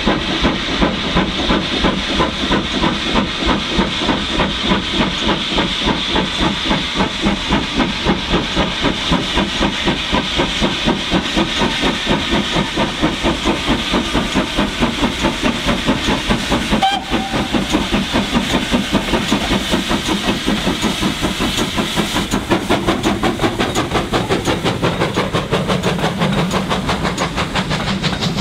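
Steam locomotive working hard as it hauls a passenger train past, its exhaust beating quickly and evenly, about four beats a second, over a hiss of steam.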